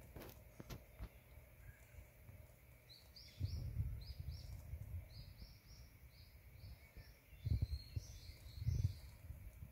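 A small bird chirping, a quick series of short high notes in little groups, broken by a few deep rumbles that are the loudest sounds, about a third of the way in and again near the end.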